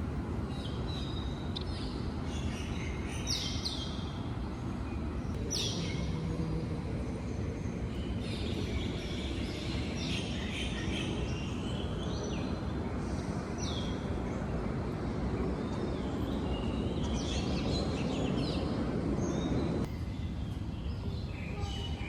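Birds chirping and singing, with several sharp calls that sweep downward in pitch, over a steady low rumble of background noise.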